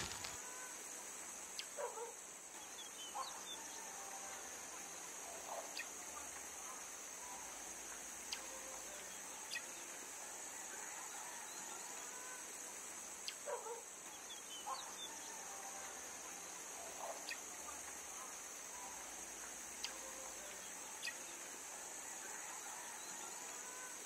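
Faint outdoor ambience: a steady high hiss with scattered, distant short bird calls every second or two.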